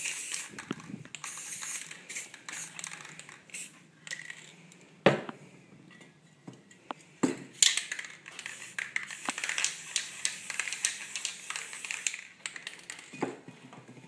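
Aerosol spray paint cans hissing onto a canvas. There are several short sprays in the first few seconds, then one long spray of about four seconds. A sharp knock about five seconds in is the loudest sound.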